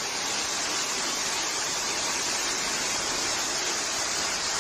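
Heavy hailstorm: a dense, steady hiss of hailstones pouring down onto a street and parked cars.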